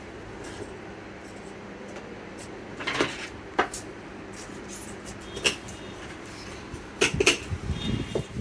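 Small objects being handled on a workbench, giving scattered clicks and knocks that bunch together near the end, over a steady low hum.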